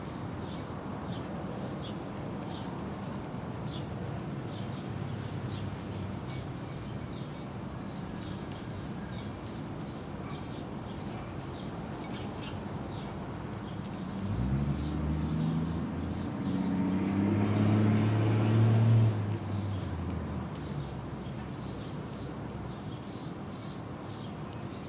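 Short high chirps repeating about three times a second throughout. A motor vehicle passes in the middle, its engine rising in pitch and loudness and fading over about six seconds; it is the loudest sound.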